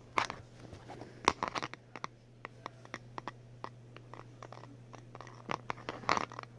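Plastic Lego pieces clicking and knocking on a tabletop as a small Lego spinner is handled and set spinning. The clicks are irregular, with the loudest about a second in and a cluster near the end.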